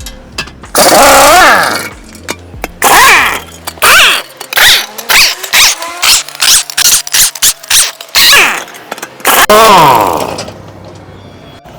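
Impact wrench undoing wheel nuts in repeated bursts, its whine rising and falling with each trigger pull. Several long bursts come at the start and end, with a quick run of short bursts in the middle.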